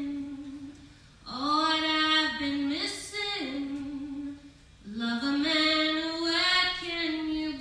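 A woman singing solo and unaccompanied into a microphone, holding long notes in three phrases with short breath pauses between them.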